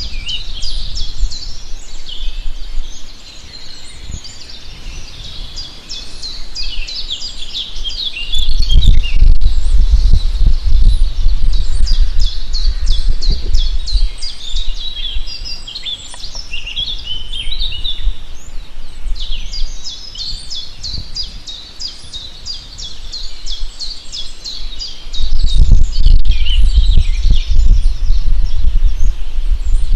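Many songbirds chirping and trilling together in quick, high, overlapping calls. A deep low rumble comes in about nine seconds in, fades out after about seven seconds, and returns near the end.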